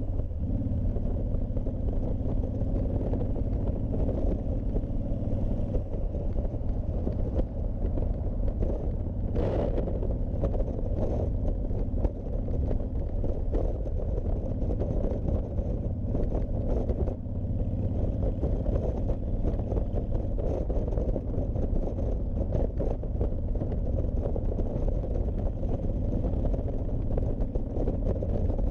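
Honda VTX1300C's V-twin engine running steadily while riding, with wind noise on the microphone.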